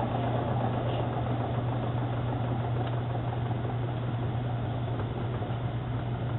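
Direct-drive top-load washer running on a test run after a transmission replacement: a steady motor hum with even mechanical running noise.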